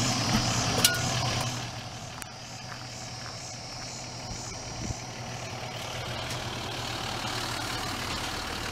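Dodge Ram pickup truck's engine idling steadily, a constant low hum, louder in the first second or so.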